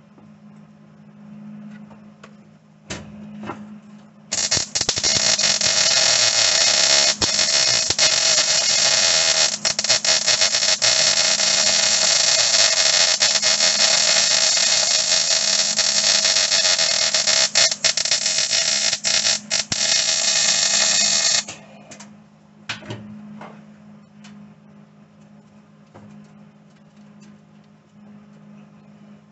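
Electric arc welding on the sheet-metal floor of a truck cab: a loud, steady crackling hiss about 17 seconds long, starting about four seconds in and cutting off sharply when the arc is broken.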